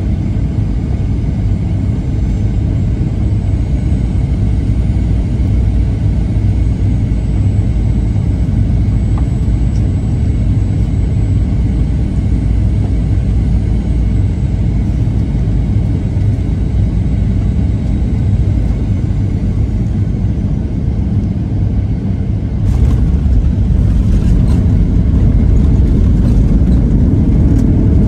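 Cabin noise inside a Boeing 737-900ER airliner: a steady low rumble of its two CFM56 jet engines and the airflow over the fuselage. About 23 seconds in, the rumble grows louder, with a run of short rattles and knocks.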